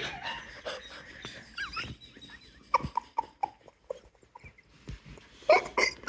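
Amazon parrot cackling. A few faint squeaky calls come first, then a quick run of short cackle notes about halfway through, and a louder burst near the end.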